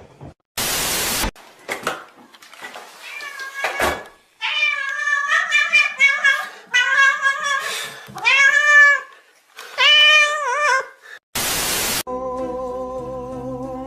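A cat meowing over and over, a series of meows that rise and fall in pitch, between two short bursts of hiss. Music starts near the end.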